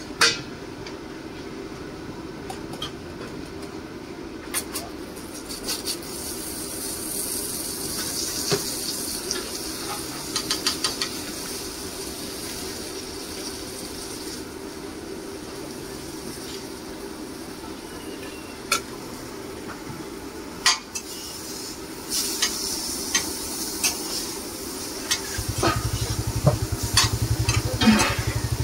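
Uthapam frying on a hot iron griddle, sizzling in stretches, with repeated sharp clinks and scrapes of a metal spatula on the pan. A deep low rumble comes in near the end.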